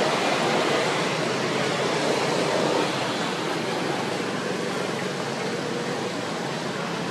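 A steady, even rushing hiss of outdoor background noise with no distinct events, easing slightly after about three seconds.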